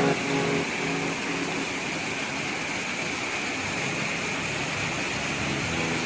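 Rushing water of a waterfall and fast river pouring over rocks: a steady, even roar of water noise.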